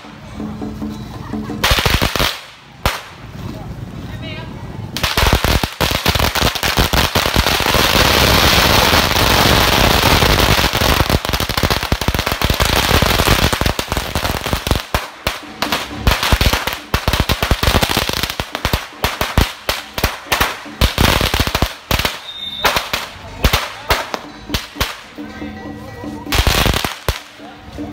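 Strings of firecrackers going off. There are scattered bangs at first, then a dense unbroken crackle for about ten seconds in the middle, then rapid separate bangs.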